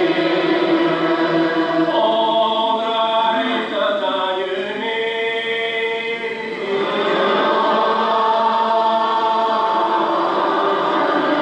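Unaccompanied Gaelic psalm singing by a church congregation: many voices holding slow, drawn-out notes together. The sound thins and dips slightly near the middle, then the full congregation swells again about seven seconds in.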